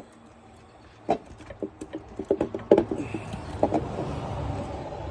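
Scattered metal clinks and knocks of hand tools and engine parts being handled, with a quick cluster of them around the middle, while a low steady rumble builds from about three seconds in.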